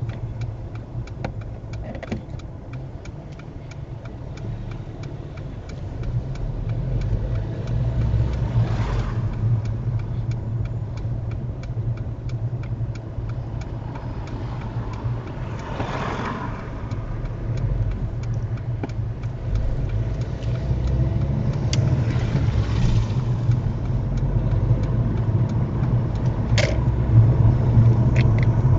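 Car engine and road rumble heard inside a moving car, growing louder as it speeds up from walking pace to about 20 mph, with a few brief swells of louder noise.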